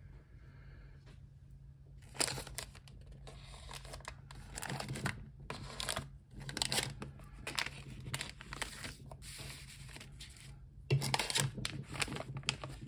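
Foil and paper tea and coffee sachets crinkling and rustling as they are handled and taken out of a bowl, in irregular bursts from about two seconds in, loudest near the end.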